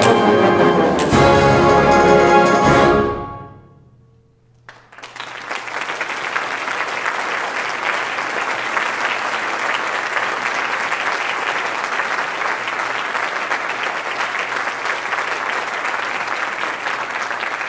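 A full wind band, trumpets to the fore, plays its closing loud chords, broken by a short gap about a second in. The last chord dies away in the hall's echo about three seconds in. After a short hush, an audience breaks into steady applause that carries on to the end.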